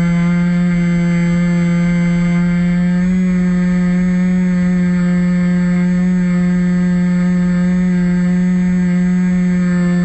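Bixler 1.1 RC plane's brushless electric motor and pusher propeller running at flight throttle, a loud steady drone heard from a camera on the plane, rising slightly in pitch about three seconds in.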